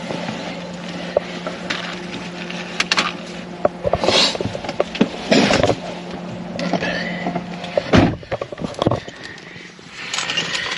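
Fast-food restaurant dining-room ambience: a steady electrical hum under scattered clatter and knocks. A sharp knock comes about eight seconds in, and the hum stops with it.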